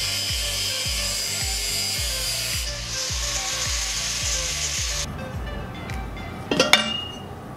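Angle grinder with a cut-off disc cutting a stainless steel tube bend, a steady high hiss that stops suddenly about five seconds in. Then a few sharp metallic clinks as the stainless exhaust manifold is handled, over background music with a steady beat.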